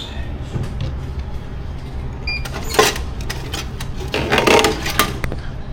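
Coins and a drink vending machine's coin mechanism clinking and clattering, with two louder rattling bursts about three and four-and-a-half seconds in, over a steady low hum.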